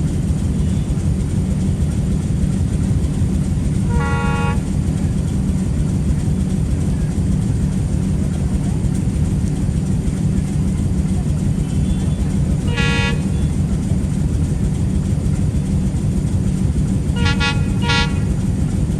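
Steady low rumble of a running train, with short horn blasts: one about four seconds in, another around thirteen seconds, and two quick toots in a row near the end.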